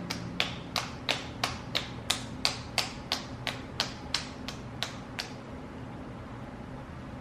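A quick run of evenly spaced sharp clicks, about three a second, that stops about five seconds in.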